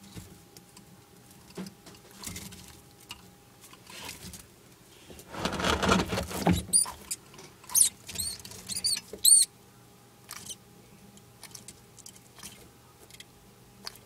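Mouse squeaking in the grip of a bearded dragon: a run of about six short, high-pitched squeaks about halfway through, just after a brief loud scuffle. Small clicks of chewing and scrabbling are scattered around them.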